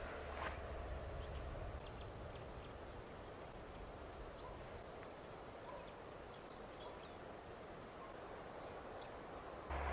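Faint night-time outdoor ambience: a steady low hiss with a few faint scattered chirps, and a low rumble that fades out about two seconds in.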